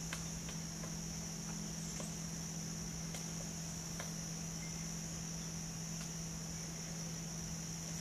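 Insects droning steadily at a high pitch over a low steady hum, with scattered sharp taps, several in the first few seconds and fewer later, as a pileated woodpecker pecks and pries bark off a branch.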